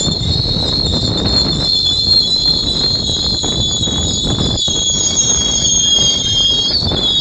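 AMT double-deck commuter train coaches rolling slowly by. Their steel wheels give a high-pitched, wavering squeal over the low rumble of the cars.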